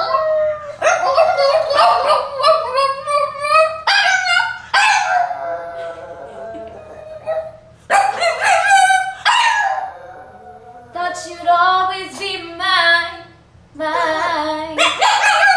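A dog howling along to a song in a series of long, wavering howls and yips that glide up and down in pitch, with short breaks between them, while a woman sings along at times.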